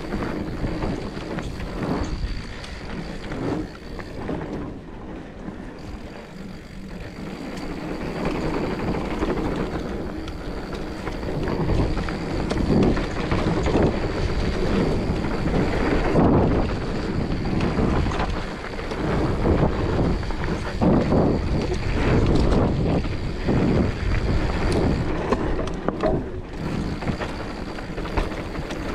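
Mountain bike riding down a dirt trail at speed: tyres rolling over dirt and leaf litter, the bike rattling over bumps, and wind buffeting the microphone. It gets louder after about eight seconds.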